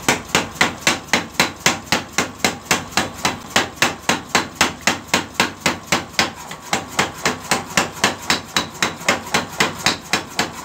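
Mechanical power hammer pounding a red-hot steel tractor blade held in tongs, a steady run of sharp blows at about three to four a second, forging the blade's edge thin to sharpen it.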